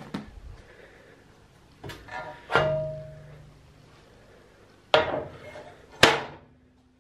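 A few sparse plucked-string notes, pizzicato-like, four sharp attacks that each ring and fade, with a low note held through the last couple of seconds.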